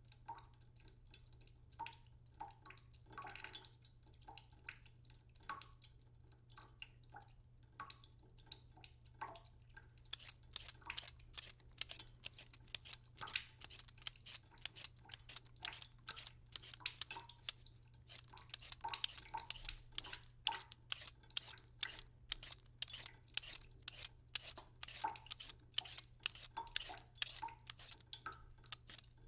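Kitchen knife cutting raw vegetables on a plastic cutting board: a few scattered taps at first, then from about ten seconds in a fast, steady run of sharp ticks, a few a second.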